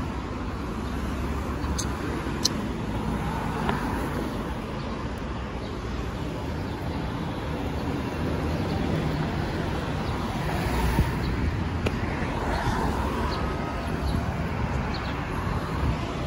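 Steady city road traffic: the continuous low rumble of vehicles passing along the street.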